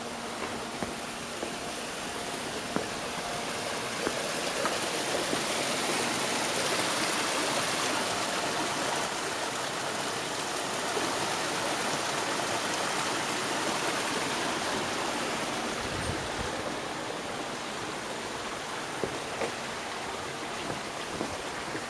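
Hot-spring water rushing and gurgling along a stone-lined runoff channel. It swells to its loudest midway, then fades, with a few faint ticks over it.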